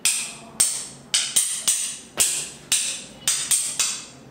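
Hyoshigi, a pair of wooden clappers, struck together about a dozen times with sharp, ringing claps that come quicker toward the end: the signal that a kamishibai story is about to begin.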